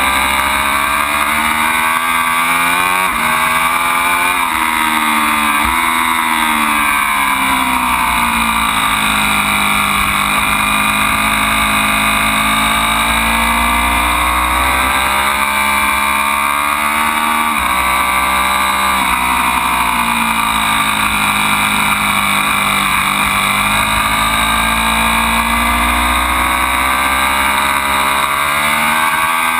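Ducati Panigale V4's 1,103 cc V4 engine being ridden hard. A quick run of upshifts comes in the first few seconds, each a rise in engine pitch cut off by a sharp drop. Then come long rises and falls in pitch as the bike accelerates and slows.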